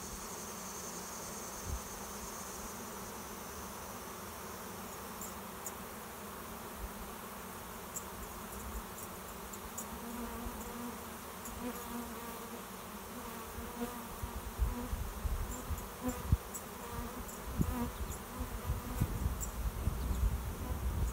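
A large swarm of honey bees buzzing, a dense steady drone of many wings as they fly around and cluster on a swarm trap. From about two-thirds of the way in, low rumbles and bumps on the microphone come and go over the buzzing.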